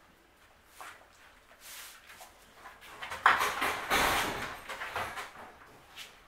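Newspaper rustling and crinkling as a puppy pounces on a plush toy lying on the papers and drags it about. It is loudest from about three seconds in for a couple of seconds, with a dull thump in the middle.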